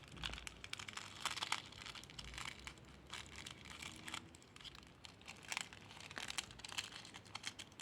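Jewellery handled and tapped close to a microphone: a run of small, irregular clicks and light rattles, bunched in clusters.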